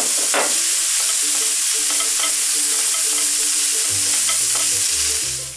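Romanesco broccoli florets and strips of smoked salmon sizzling in a frying pan, stirred with a spatula. The steady sizzle drops away abruptly just before the end.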